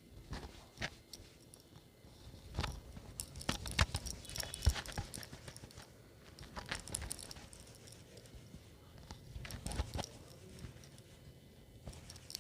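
Wet hair being dried by hand, most likely with a towel: irregular soft slaps and rustles, densest a few seconds in and again near the end.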